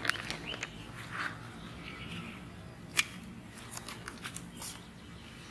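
Scattered sharp snaps and clicks with rustling of plant leaves, the loudest snap about three seconds in: okra pods being harvested from the plants.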